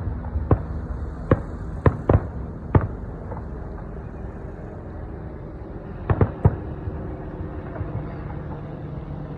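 Fireworks shells bursting: a run of sharp bangs, about five in the first three seconds and another two or three about six seconds in, over a steady low hum.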